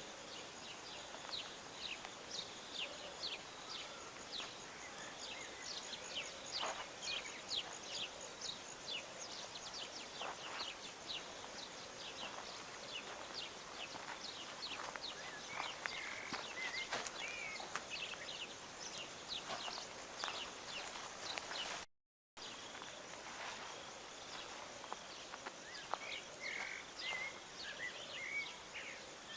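Birds chirping and singing: many short, quick chirps throughout, with a few warbled phrases, over a steady background hiss. The sound drops out to silence for a moment about 22 seconds in.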